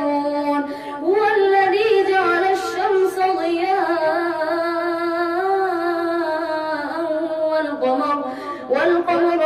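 A boy reciting the Quran in Arabic with melodic tajweed, drawing one long phrase out in long, held, wavering notes. Near the end he breaks off briefly for breath, then begins the next phrase.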